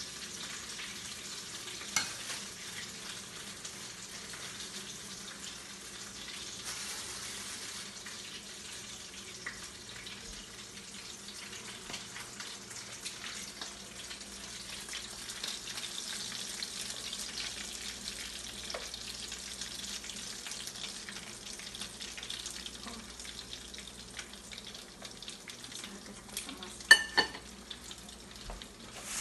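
Potato-and-chicken pasteles frying in hot oil in a skillet: a steady sizzle. A sharp knock comes about two seconds in, and a few louder clacks near the end.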